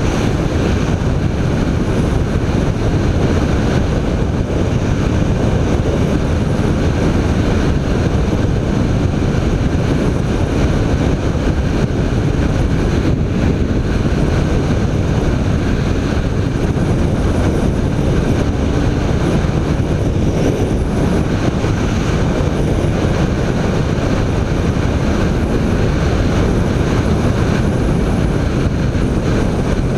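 BMW K1300 R inline-four motorcycle running at a steady riding pace, mixed with heavy wind rush on the microphone.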